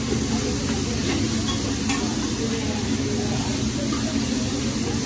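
Chicken and steak sizzling on a hot hibachi griddle, with a few light ticks of the chef's metal spatula against the steel, one about two seconds in.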